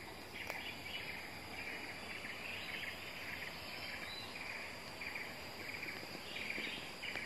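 Forest ambience: insects chirping in short rapid bursts that repeat about once or twice a second, over a thin steady high-pitched drone.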